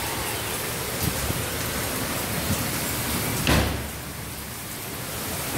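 Heavy rain, a steady hiss, with one dull thump about three and a half seconds in, after which the rain briefly sounds quieter.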